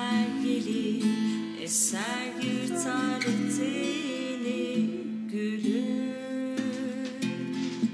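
A woman singing, accompanied by an acoustic guitar; her voice slides between notes.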